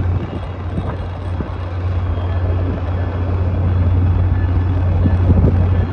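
Steady low rumble and hum of trains idling at a station platform, swelling slightly near the end, with no horn sounding.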